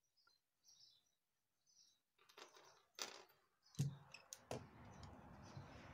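Faint handling sounds of jewellery making: small clicks and rustles as metal findings and a pair of pliers are picked up and handled on a wooden table. A sharper click comes a little before halfway, followed by a low steady rumble.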